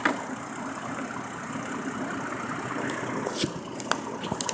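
A vehicle engine idling steadily, with a few light clicks near the end.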